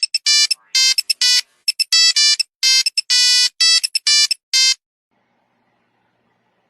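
A run of short, high-pitched electronic beeping notes like a phone ringtone, steady in pitch and uneven in rhythm, stopping just under five seconds in.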